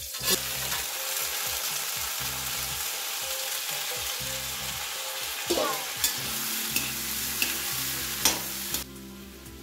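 Fresh green peas tipped into hot oil and cumin tempering in a metal kadhai, sizzling steadily while a perforated steel spoon stirs them, with a few clinks of the spoon against the pan. The sizzle drops away sharply near the end.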